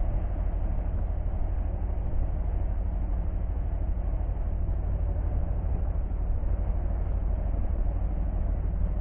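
A motorcycle engine running steadily, a low, even rumble.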